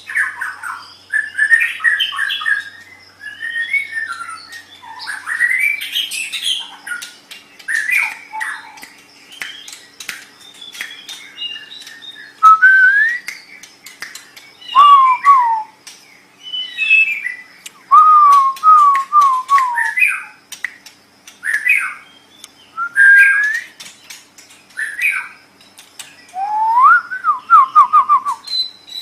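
White-rumped shama (murai batu) singing a varied song of clear whistled phrases, many falling in pitch, mixed with sharp clicking and chattering notes. The whistled phrases are loudest in the second half.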